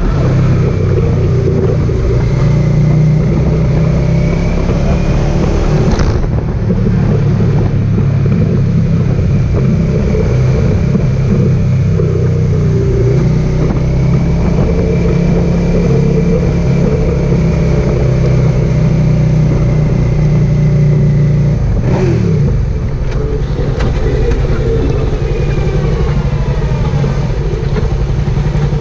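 Suzuki SV650S's V-twin engine running steadily under way, with wind noise. A sharp click comes about six seconds in and another about two-thirds through. The engine note then drops briefly and climbs again.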